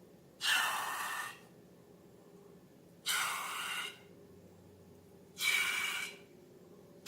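Three short hissing rushes of air, breath-like, each about a second long and about two and a half seconds apart.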